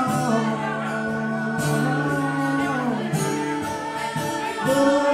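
Live acoustic song: singing with long held notes over a strummed acoustic guitar.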